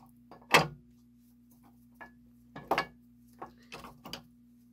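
Metal knocks and clinks as the frame and brass gears of a lighthouse lens drive clock movement are handled and fitted together. A sharp knock about half a second in is the loudest and another comes near three seconds, with lighter taps between, over a steady low hum.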